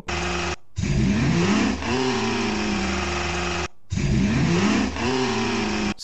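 AI-generated motorcycle engine sound effect, a roaring motorcycle revving up with rising pitch and then running steadily. The short clip loops, breaking off briefly about half a second in and again past the middle before restarting with the same rising rev.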